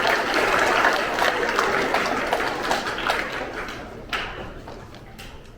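Audience applause dying away. Many hands clapping at first, thinning and growing quieter, down to a few scattered claps by the end.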